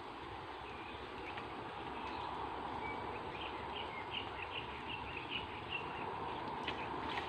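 Outdoor pond-side ambience: a steady background hiss with small birds chirping in quick, broken calls through the middle, and a couple of light clicks near the end.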